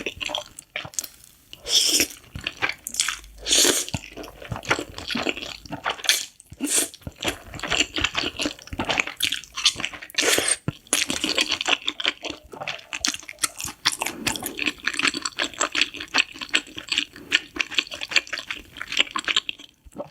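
Close-up eating of spicy noodles: irregular wet, sticky chewing and mouth sounds, dense and uneven throughout.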